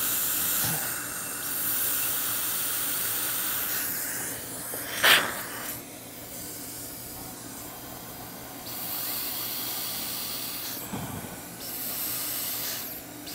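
High-speed dental handpiece with a fine finishing diamond and water spray, hissing in several short runs while it lightly smooths crown margins to clear leftover cement. Dental suction hisses steadily underneath. One brief, louder burst comes about five seconds in.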